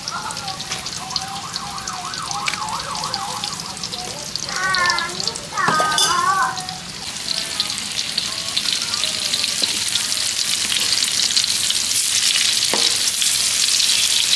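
Banana fritters sizzling and crackling as they deep-fry in hot oil, the sizzle growing louder over the second half.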